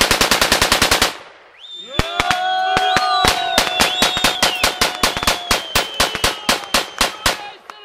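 Rapid series of sharp explosive bangs: a fast burst of about a dozen in the first second, then after a short pause a longer, uneven run of cracks, several a second. A steady tone holds over the second run.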